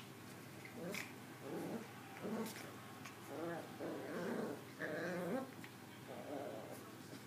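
Two Maltese puppies growling in play as they wrestle, a string of short growls about once a second, loudest around five seconds in.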